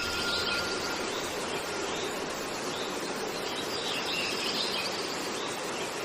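Steady hissing machine noise of an aluminium-cutting workshop, with a faint high whine that fades out about a second in; the sound cuts off abruptly at the end.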